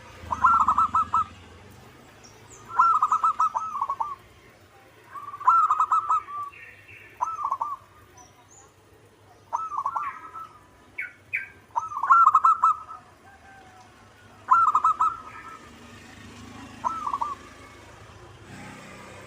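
Zebra dove (perkutut) singing: about eight cooing phrases of rapid, trilled notes, one every two to three seconds. Faint high chirping lies between the phrases.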